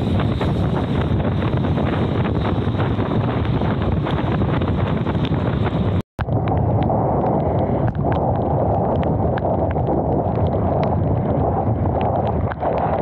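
Wind buffeting the camera microphone while riding a mountain bike, with clicks and rattles from the bike. The sound cuts out for an instant about six seconds in and comes back duller.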